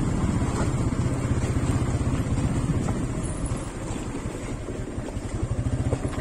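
TVS Apache 180 motorcycle's single-cylinder four-stroke engine running at low speed as the bike rides over a rough dirt trail, a little quieter in the second half.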